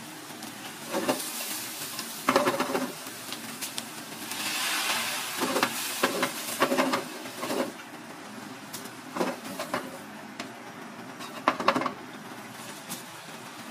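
Shredded vegetables and crab sizzling in a hot frying pan over a gas burner, with the pan scraped and tossed in clattering strokes every second or two. The sizzling swells louder about four seconds in.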